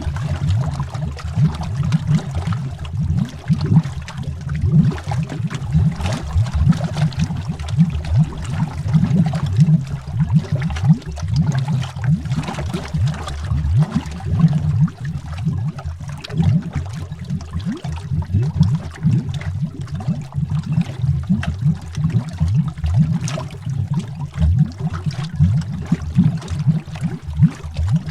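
Continuous underwater bubbling: many bubbles rising and popping in quick, irregular succession, deep and bubbly, with a fainter watery fizz above it.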